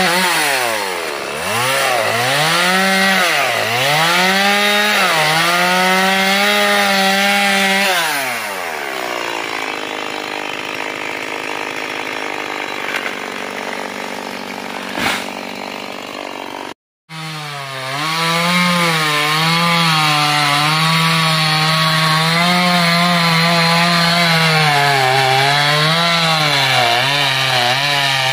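Petrol chainsaw cutting into a coconut palm trunk, its engine speed dipping and recovering again and again as the chain bites. About eight seconds in it drops to a lower, quieter idle for several seconds, then after a sudden break it runs at high speed again, sawing steadily.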